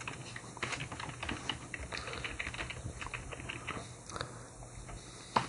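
Typing on a computer keyboard: a steady run of quick keystroke clicks, with one sharper click near the end.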